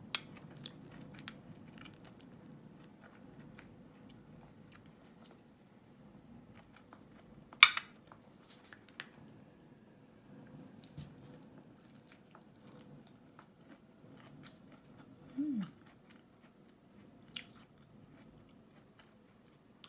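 Close-up eating sounds: a person chewing and biting food, corn on the cob and coleslaw, with scattered sharp clicks, the loudest about eight seconds in. A short falling tone comes about fifteen seconds in.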